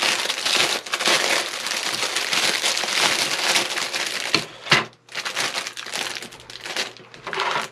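Clear plastic bag crinkling and rustling as it is pulled off a plastic toothbrush holder and its tray, with a short break about five seconds in.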